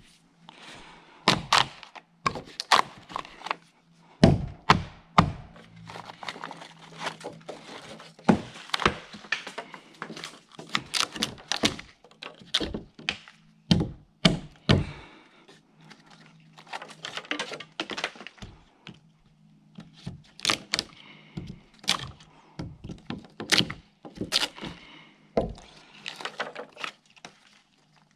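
Hatchet chopping into a log, knocking out the wood between a row of saw kerfs to cut a notch: a long run of sharp, irregular chops, with a few short pauses and the chops thinning out near the end.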